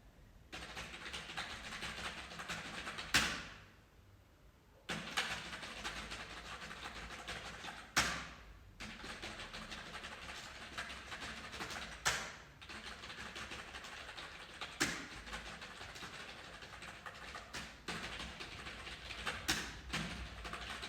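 Fast, continuous keyboard typing, a dense run of key clicks. Every few seconds a single louder key strike stands out, like a hard press on the space bar or enter key, and there is a short pause about four seconds in.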